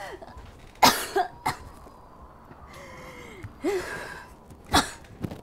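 A woman coughing several times and gasping for breath in short strained sounds between the coughs, after being choked.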